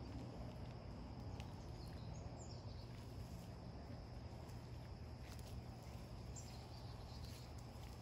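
Faint woodland ambience: a steady high insect drone over a low rumble, with a couple of brief bird chirps and a few light clicks.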